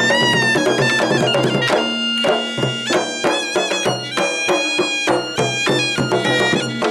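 Traditional South Sulawesi dance music: a reedy wind instrument plays a bending, ornamented melody over hand-beaten barrel drums that strike in quick groups.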